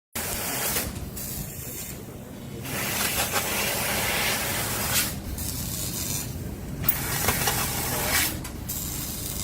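CNC sheet-metal cutting machine hissing in spells of one to two and a half seconds, with short pauses between cuts, over a steady low machine hum.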